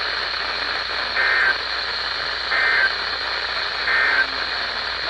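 Weather radio reception hiss with three short bursts of warbling digital data tones, about a second and a half apart. This is the SAME end-of-message signal that closes an emergency alert broadcast.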